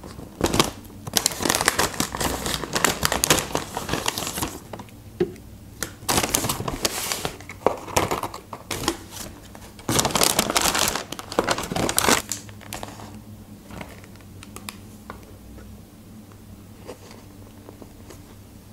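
Brown paper fast-food bag rustling and crinkling in bursts as cardboard food boxes are pulled out and set down on a wooden board. The handling gets quieter near the end as a box is opened.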